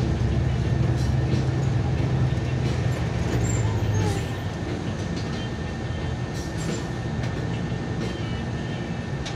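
Steady low rumble of a running vehicle, easing a little about four seconds in.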